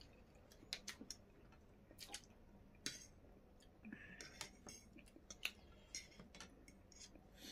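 Faint eating sounds: forks and spoons clicking and scraping on ceramic plates at scattered, irregular moments, with soft chewing of chow mein noodles.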